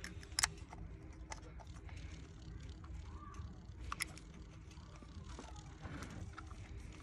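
A few faint clicks and taps of a hand fitting a small bolt among engine-bay parts, with two sharper clicks about half a second and four seconds in, over a steady low rumble.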